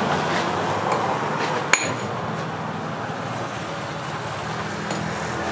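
A single sharp, ringing clink of a steel axe head striking a small steel piece on an anvil about two seconds in, with a lighter tap near the end, over a steady low workshop hum.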